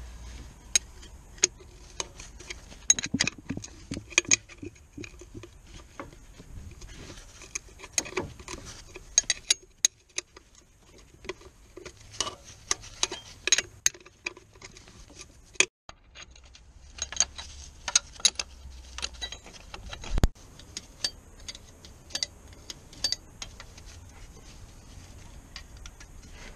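Metal spanner working a bolt on the gearbox: bursts of quick metallic clicks and clinks, with one heavier knock about three-quarters of the way through.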